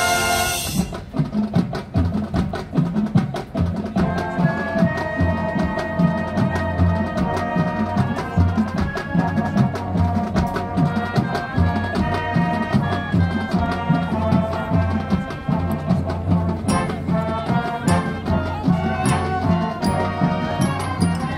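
High school marching band playing: brass and winds over a steady drumbeat and front-ensemble percussion. A loud full-band chord breaks off about a second in, and a quieter, rhythmic passage follows.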